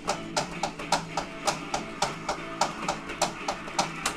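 Background music: the instrumental stretch of a song with a steady, fast drum beat.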